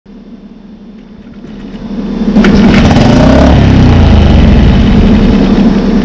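Mercury 6 hp single-cylinder four-stroke outboard motor catching and running, jumping up loud about two and a half seconds in, then beginning to die away at the very end. It is the sign of an engine that starts but won't keep running, a fault the owner puts down to the carburetor.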